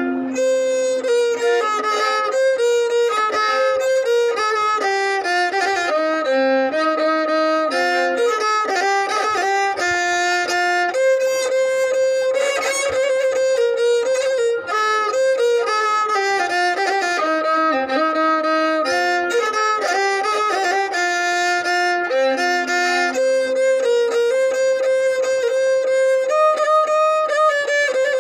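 Solo violin playing a melody, a single line of notes stepping up and down, some short and some held for a second or two.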